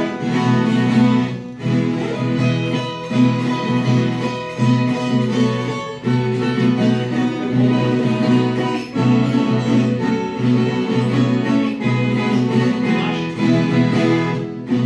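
Instrumental break of a Brazilian country song, played on viola caipira and acoustic guitar, with plucked string melody over a steady strummed accompaniment.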